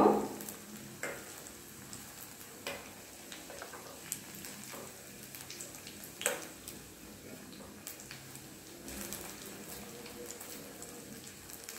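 Breaded curd rice balls sizzling as they deep-fry in hot oil in a steel pan, with occasional light clicks of a spoon against the pan as they are turned over; one click about six seconds in is louder.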